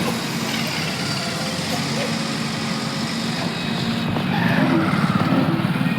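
Bulldozer's diesel engine running steadily, with people's voices in the background.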